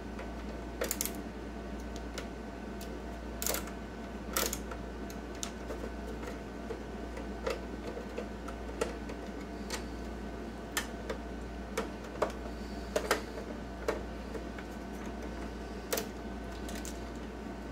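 Screwdriver clicking and tapping against the metal parts of an IGT S+ slot machine coin hopper as it is worked on, in scattered, irregular clicks over a steady low hum.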